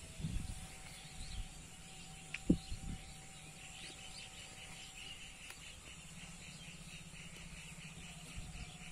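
Quiet outdoor ambience with a high, rapidly repeating chirping. A single sharp thump comes about two and a half seconds in.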